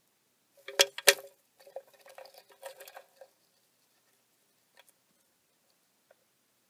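A tarantula strikes a cockroach held in metal feeding tweezers against a plastic enclosure: two sharp clicks about a second in, then a flurry of small clicks and scratches for about two seconds as it grapples with the prey, and a couple of faint ticks near the end.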